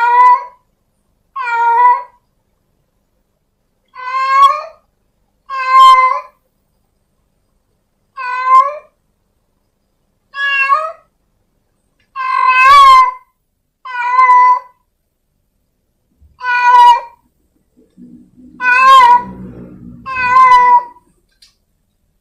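A domestic cat meowing over and over, one short meow about every two seconds, each call much like the last. A faint low rumble sits under the meows near the end.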